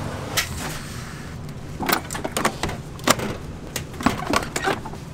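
A series of sharp clicks and knocks, about eight over a few seconds, from plastic takeout trays and a tray-sealing machine being handled at a food counter.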